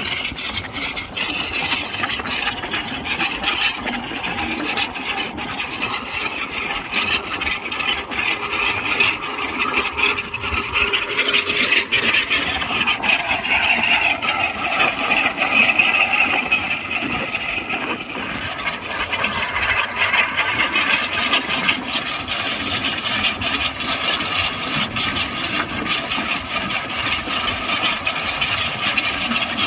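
Massey Ferguson 9500 Smart tractor's diesel engine running steadily under load while it pulls a chain trencher cutting a pipeline trench, with a constant clattering rattle from the digging chain and soil.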